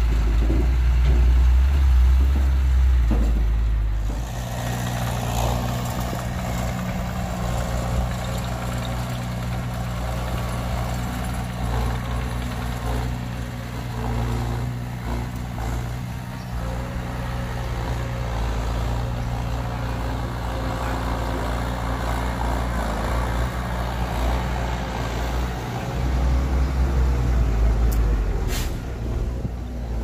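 Heavy diesel engines of earthmoving machinery and dump trucks running with a steady low drone, louder for the first few seconds and again near the end. A short hiss comes near the end.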